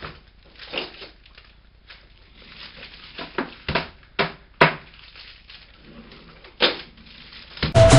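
Kitchen cutlery drawer being rummaged, with metal utensils and a kitchen knife clattering and a handful of sharp knocks spread over several seconds. Loud background music cuts back in near the end.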